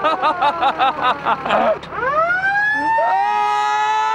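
Japanese fire truck siren sounding. A fast warbling yelp plays over a slowly falling tone, then about two seconds in a new wail rises and holds a steady pitch.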